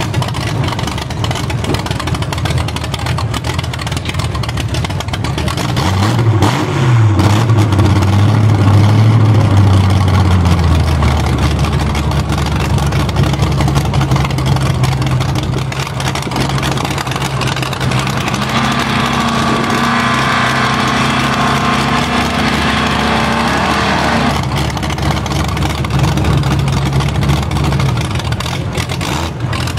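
Pickup truck engines idling and being revved, with a rise in pitch about six seconds in and a loud, held engine note for a few seconds after it, then settling to a steady running sound.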